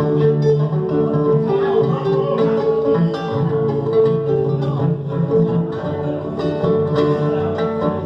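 Instrumental introduction of a Spanish-language folk song: plucked guitar over long held notes, with no singing yet.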